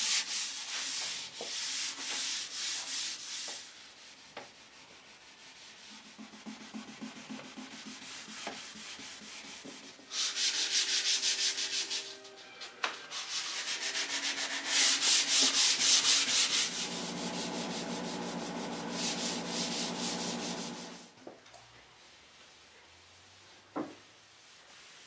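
Hand-sanding a fully dried finish on a mahogany desk case with fine abrasive, in spells of rapid back-and-forth scratchy strokes, softer for a while, that stop about four seconds before the end. This is scuff-sanding between finish coats, ahead of a final satin coat.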